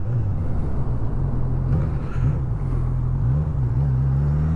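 Honda CB1000R's inline-four engine running under way, its pitch rising and dipping with the throttle, over a steady rushing noise.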